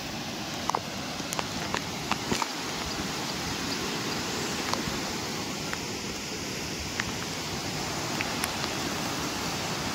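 Steady rushing roar of a rain-swollen hill stream in flood, churning over rocks, with a few faint ticks scattered through it.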